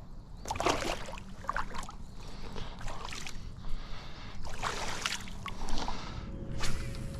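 Water splashing and sloshing against a kayak in several irregular bursts.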